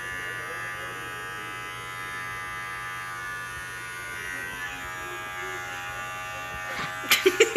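Electric hair clippers running with a steady buzz as they trim the hair around a man's ear. A few sharp clicks come near the end.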